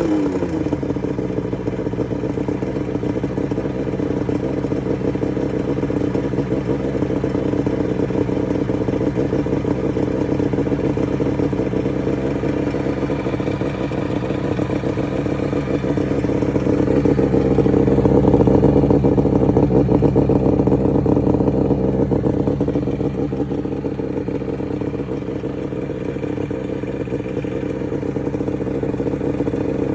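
Suzuki GT380 ('Sanpachi') air-cooled two-stroke triple running steadily near idle, with a clattery edge. The owner suspects this is an abnormal engine noise. Revs settle just at the start and rise a little for a few seconds around the middle.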